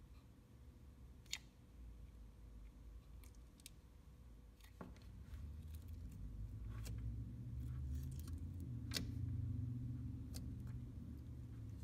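Thick cream slime being squeezed and poked by hand, giving scattered sharp clicks and pops over a low handling rumble that grows louder about halfway through.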